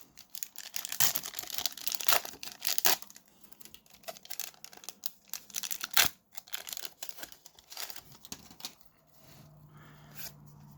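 Wrapper of an Upper Deck basketball card pack being torn open and crinkled, with a dense run of rips and crackles in the first three seconds. Quieter rustling of the pack and cards follows, with one sharp click about six seconds in.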